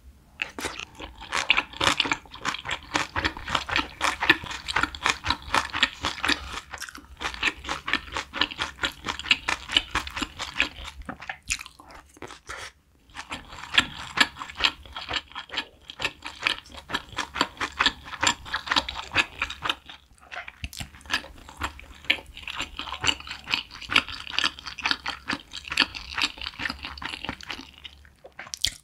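Close-miked chewing: wet, crunchy mouth sounds of a person chewing mouthfuls of spicy braised chicken and green onion kimchi, in bouts of several seconds with three short breaks.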